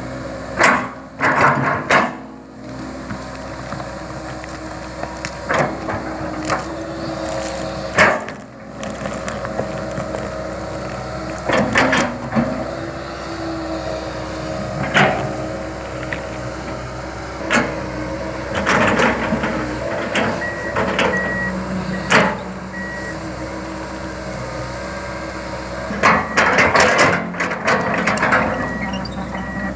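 Komatsu PC200 LC tracked excavator running steadily under work, with repeated sharp metal clanks and knocks. An intermittent high beeping alarm sounds in two spells in the second half.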